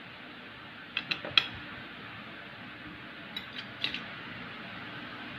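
Metal knife blade clinking against a ceramic plate while cutting through a loaf of butter cake: three quick sharp clicks about a second in, then four more around three and a half to four seconds, over a steady background hiss.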